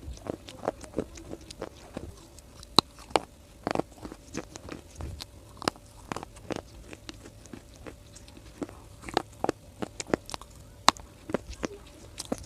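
Close-miked biting and chewing of brittle dry clay (mitti): irregular sharp crunches and crackles, several a second, with a few louder snaps along the way.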